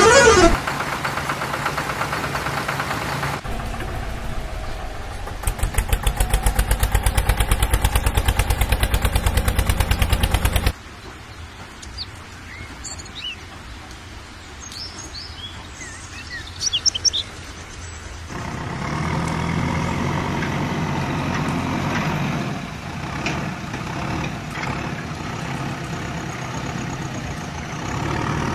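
Heavy vehicle engine sounds: an engine running, then a fast, even chugging that cuts off suddenly about ten seconds in. A quieter stretch with birds chirping follows, and from about eighteen seconds a low engine rumble runs again.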